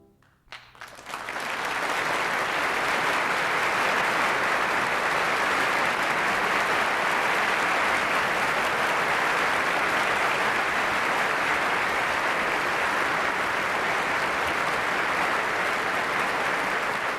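Concert hall audience applauding, breaking out about a second in as the orchestra's final chord dies away, then a steady, sustained ovation.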